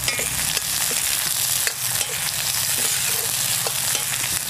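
Chopped onions sizzling in hot mustard oil in an iron kadhai, stirred with a metal ladle that taps and scrapes against the pan now and then.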